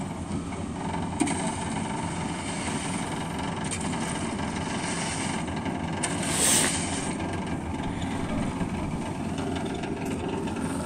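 Construction machinery engine running steadily, with a sharp click about a second in and a brief louder rush of noise about six and a half seconds in.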